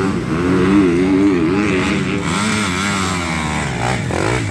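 Several dirt bike engines racing, their pitch rising and falling as the riders rev and shift, overlapping one another.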